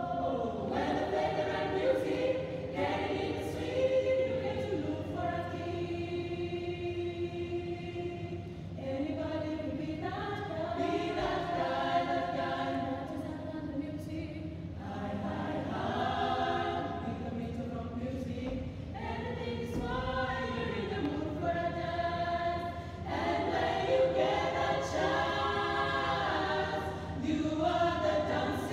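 A girls' choir singing a cappella in harmony, with several voice parts holding and moving between notes.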